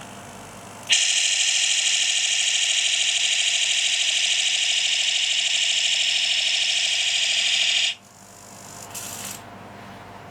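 Electronic beam rifle sound effect of a Gundam RX-78-2 model, played by an Arduino through a small speaker: a steady high-pitched electronic tone starts about a second in, holds for about seven seconds and cuts off suddenly, followed by a short fainter burst and a brief sharp one near the end.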